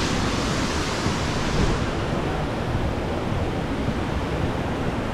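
Steady rushing of water tumbling over a creek waterfall, an even hiss with no breaks.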